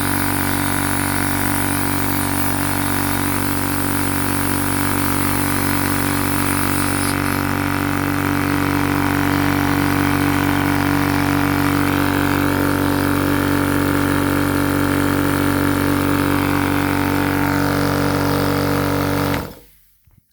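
TUXING TXED012 high-pressure air compressor running steadily, then switched off about nineteen seconds in, cutting off suddenly. It runs without building pressure, which the owner puts down to a missing rubber seal.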